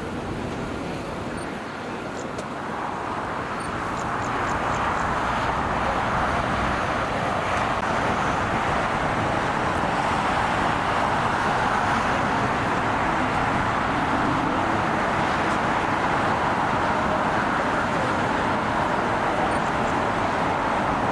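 Jet airliner engine roar, swelling over the first few seconds and then holding steady and loud.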